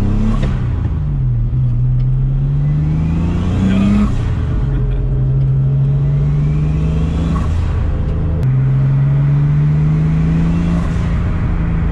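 Turbocharged BMW E30's M52 straight-six accelerating hard, heard from inside the sound-deadened cabin. The engine note climbs in pitch and drops sharply at upshifts about four and eight seconds in, then climbs again.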